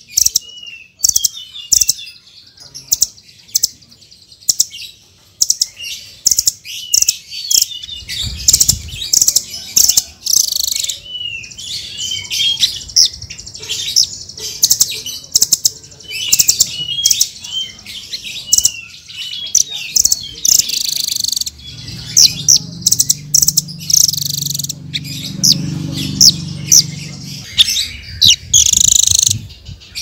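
Small songbirds giving rapid high chirps, sharp tweets and short twittering sweeps in quick bursts, from a mixed nuthatch and sunbird calling track used to provoke and train cage birds. A low rumble runs under the calls for a few seconds in the last third.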